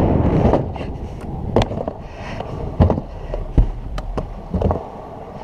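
Stunt scooter wheels rolling fast over skatepark concrete with a loud rumble at first, then several sharp clacks and knocks as the scooter lands tricks and grinds a rail.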